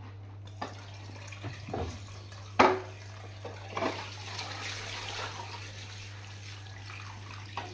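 Kitchen tap water running onto dishes in the sink, starting about half a second in, with clinks and knocks of crockery being handled; the loudest is a sharp knock about two and a half seconds in.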